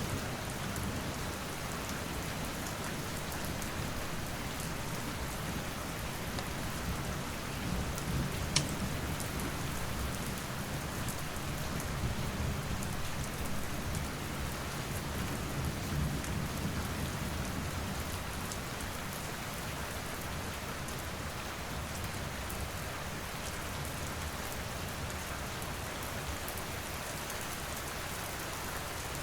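Steady rain with a low rumble of thunder through roughly the first half, and a few sharp crackles and pops from a wood fire, the loudest about a third of the way in.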